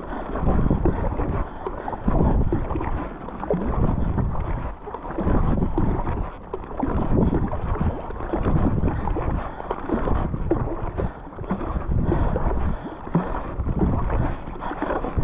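Fast kayak paddle strokes from a Werner Cyprus paddle, the blades splashing and pulling through the water in a steady rhythm of about one stroke a second. Wind buffets the microphone throughout.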